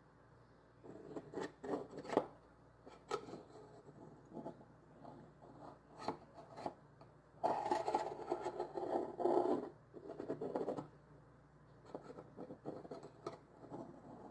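Kitchen handling sounds: a utensil scraping and rubbing, with scattered light knocks and a longer stretch of scraping in the middle.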